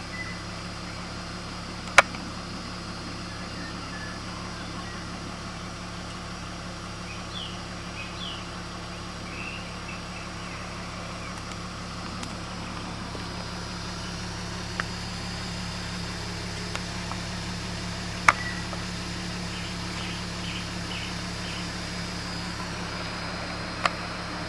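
BMW 320Ci E46's straight-six engine idling steadily, with three sharp clicks and a few faint bird chirps.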